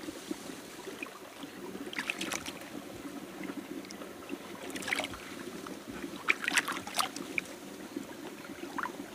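Hands splashing and sloshing in a shallow, muddy trickle of ditch water while digging out a plant root, with a few sharper splashes at about two, five and six to seven seconds over a steady run of flowing water.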